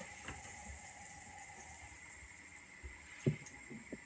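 Faint steady hiss of a gas hob burning under a pan of oil as it heats, with a soft knock about three seconds in.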